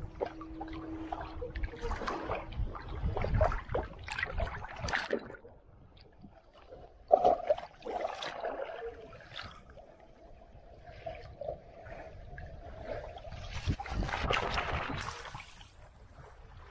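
Water sloshing and trickling in irregular splashes, with wind rumbling on the microphone, louder in the first few seconds and again about 14 seconds in.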